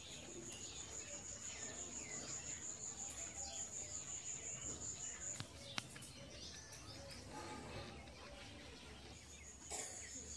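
A high, steady insect trill, stopping about five seconds in and starting again near the end, with scattered bird chirps behind it and one sharp click in the middle.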